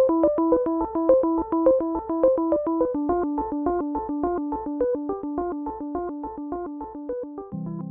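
Background music on an electronic keyboard: a fast repeating arpeggio of bright notes that shifts to a lower chord about three seconds in and slowly grows quieter, with a low held note entering near the end.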